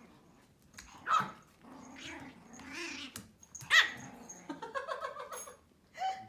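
Pomeranian dogs at play: two sharp, high yips, about a second in and just under four seconds in, with softer low growly vocalising between them.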